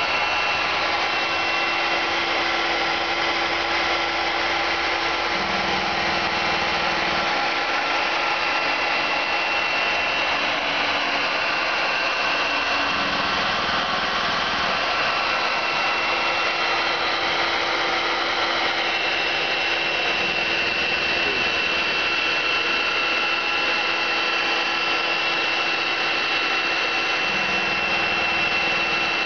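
Small electric motor running steadily and without a break: a constant high whine and a lower hum over a dense rushing hiss.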